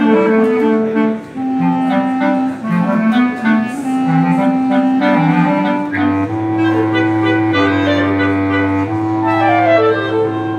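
Clarinet ensemble of clarinets and a bass clarinet playing a contemporary piece in several parts. Busy moving lines give way, about six seconds in, to longer held chords over a low sustained bass clarinet note.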